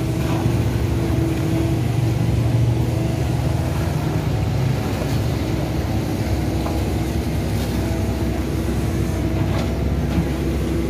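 Excavator's diesel engine running steadily while its arm digs sludge out of a drainage ditch. The engine note shifts about halfway through.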